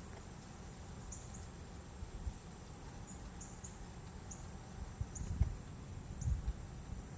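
Faint, short high chirps repeating every half second to a second, like an insect such as a cricket, over a low rumble. A few dull low thumps come about two seconds in and again in the second half.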